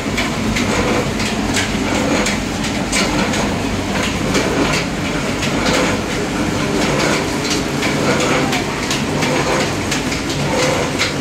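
Small screw-type mustard oil expeller running loaded while pressing mustard seed: a loud, steady mechanical hum with a constant irregular clatter of knocks and clicks.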